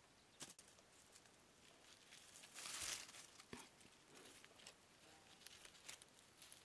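Near silence, broken by faint rustling and small crackles of dry leaves and plants as kittens move through the undergrowth, with one longer rustle about two and a half seconds in.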